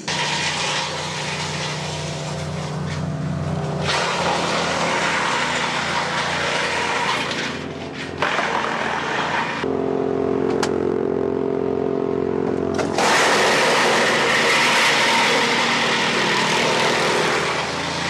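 Först ST6P HD wood chipper, driven by a 37 hp Vanguard V-twin petrol engine, chipping brushwood: the engine runs steadily under load beneath the loud rushing noise of branches being chipped and blown out of the chute. The chipping noise shifts several times and is heaviest in the last few seconds.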